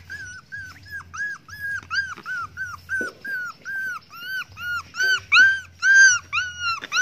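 Puppy whining: a steady run of short, high-pitched whimpers, each rising and falling in pitch, about three a second, growing louder about five seconds in.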